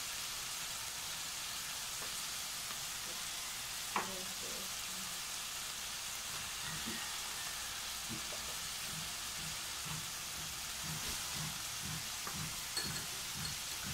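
Chopped garlic, ginger, onion and tomato sizzling steadily in hot oil in a stainless steel pan, with one sharp click about four seconds in.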